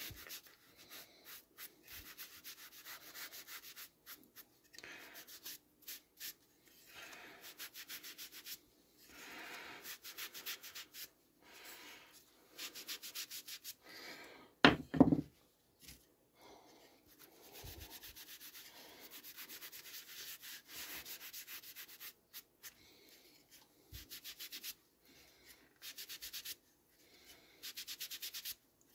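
Green scouring pad rubbed back and forth on small wooden blocks, working in an oil-wax finish, in repeated bursts of quick scratchy strokes. About halfway through there is one loud knock.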